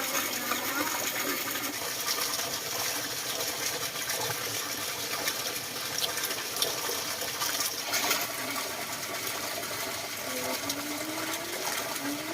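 Steady rushing water noise, with a few faint short rising calls near the end.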